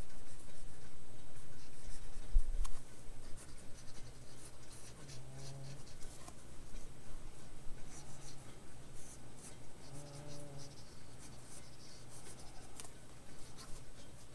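Mechanical pencil sketching on paper: a run of short, scratchy graphite strokes, louder for the first few seconds, then lighter.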